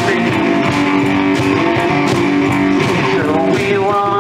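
One-man band playing garage blues-rock live: electric guitar riff over a bass drum and cymbal beat.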